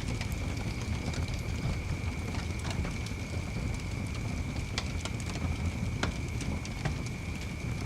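Wood fire crackling in a fireplace: irregular sharp pops and snaps over the low rumble of the flames, with a faint steady high-pitched whine underneath.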